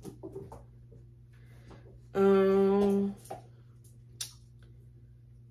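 A person's voice holding one steady tone, like a hummed or drawn-out 'hmm', for about a second in the middle, with a few faint clicks around it.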